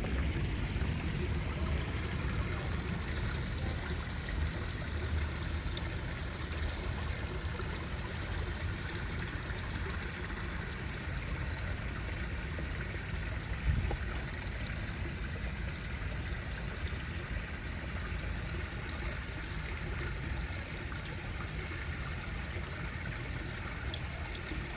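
Water trickling and running steadily in a garden pond with several pools, with a low rumble underneath.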